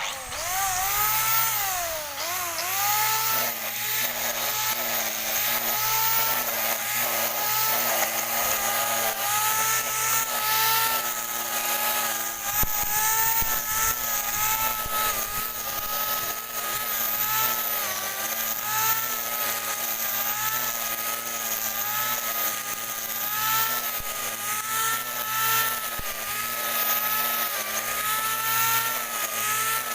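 Grass brush cutter starting up and running. Its pitch dips and climbs over the first few seconds, then it runs steadily with small wavers in speed.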